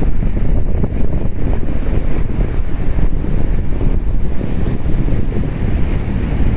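Wind buffeting the microphone in a steady low rumble, over sea waves washing against a rocky shore.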